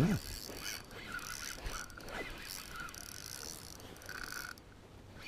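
Savage Gear SG8 4000 FD spinning reel being cranked, its gears whirring steadily as line is wound in with a fish on the spoon. It stops about four and a half seconds in.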